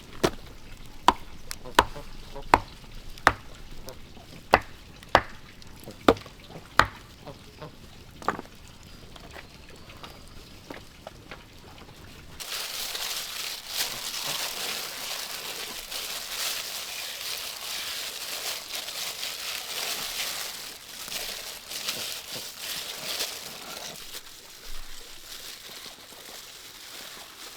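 About ten sharp knocks, roughly one a second, then, after an abrupt change about halfway through, a steady high hiss that lasts some ten seconds before fading.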